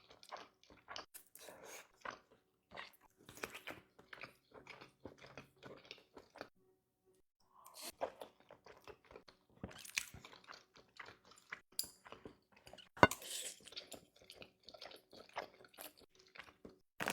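A person chewing a mouthful of cheesy ramen close to the microphone, a run of short wet mouth clicks and crunches. There is a pause about halfway through and one sharp click a few seconds from the end.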